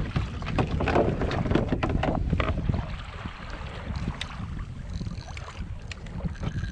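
Wind buffeting the microphone over water splashing and sloshing against a fishing kayak's hull, with scattered knocks and rattles; louder for the first three seconds or so.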